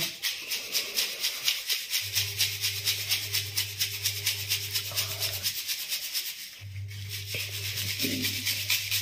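Sugar being sifted by shaking a plastic sieve over a steel plate, in a fast, even rhythm of shakes. A steady low hum runs under it for much of the time, breaking off for about a second past the middle.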